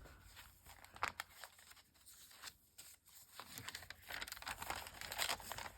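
Paper being handled: a few light taps about a second in, then soft rustling and crinkling of journal pages and a paper tag toward the end.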